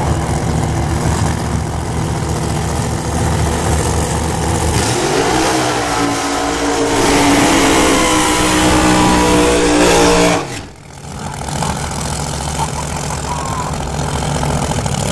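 Supercharged Pro Mod drag-racing engines idling, then one engine rises sharply to high revs about five seconds in and holds there for a tyre-smoking burnout. The high revs cut off suddenly about ten and a half seconds in, and a lower, steady engine sound carries on.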